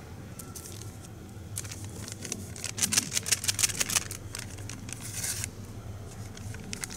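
A paper packet of hot cocoa mix crinkling and tearing as it is handled and torn open. It is a rapid crackle that starts about a second and a half in, is loudest and densest around three to four seconds, and stops near five and a half seconds.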